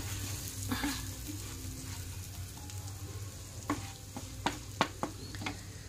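Wooden spatula stirring spiced amla (Indian gooseberry) pieces in mustard oil in a nonstick frying pan: soft scraping, with a few sharp taps of the spatula on the pan, mostly in the second half. A faint sizzle comes from the still-hot oil, the flame just turned off.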